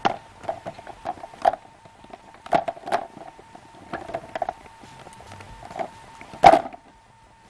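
Scattered clicks and knocks of kitchen gear being handled on a counter, as an electric food chopper is set up with its bowl of ingredients, with one louder knock about six and a half seconds in. A faint steady hum runs underneath.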